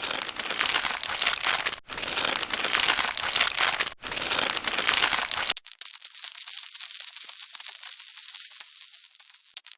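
A dense, hissy rattling in three stretches of about two seconds each, with short breaks between them. About five and a half seconds in, it gives way to a continuous jingling with several steady, high ringing tones, like small bells.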